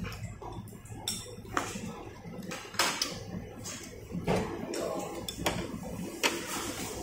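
Tableware clinking during a meal: chopsticks and small china bowls knocking on plates, a scattered series of sharp clinks about once a second, over a low murmur.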